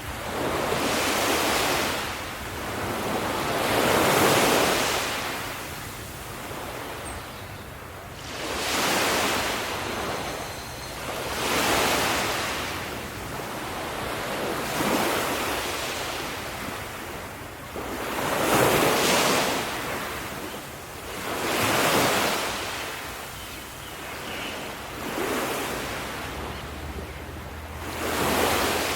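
Ocean waves breaking and washing in, about nine surges that each swell and fade, every three to four seconds.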